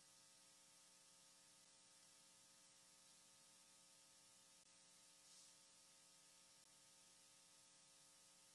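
Near silence: room tone with a faint, steady electrical hum and hiss.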